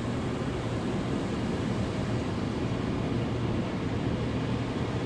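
Automatic tunnel car wash running: a steady rumble of wash equipment and water spray, heard muffled from inside the car's cabin.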